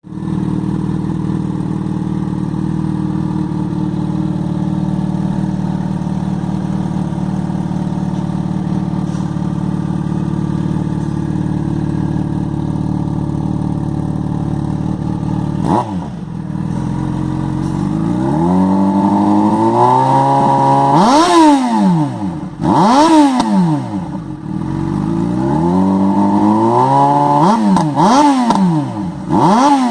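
Yamaha XJ6's inline-four engine with an aftermarket Hurricane exhaust, very loud. It idles steadily for about fifteen seconds, climbs slowly in revs, then is blipped several times, each rev rising and falling quickly.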